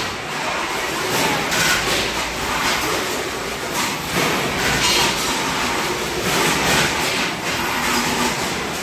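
Automatic sausage weighing and packing line running: a steady mechanical din of grading machines and conveyors, with short hissing bursts recurring every second or so.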